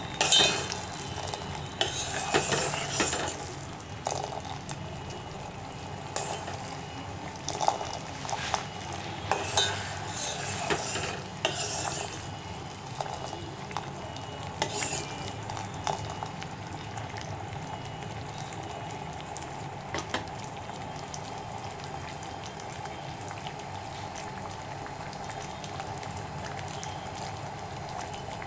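Sugar syrup bubbling at the boil in a stainless steel pot, with a metal ladle stirring and clinking against the pot for about the first half; after that, only the steady bubbling goes on. The sugar has dissolved and the syrup is being cooked down until it turns sticky.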